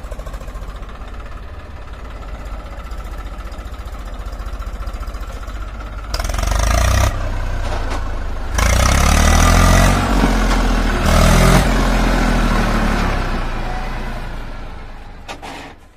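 Eicher 333 tractor's diesel engine running while it pulls a loaded trolley. It runs steadily at first, grows louder about six seconds in, rises and falls in pitch through the loudest middle stretch, then fades near the end.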